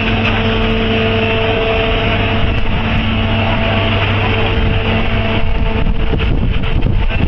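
A construction machine's engine running steadily, with a continuous hum under a dense mechanical noise. From about five seconds in, gusty buffeting noise is mixed in.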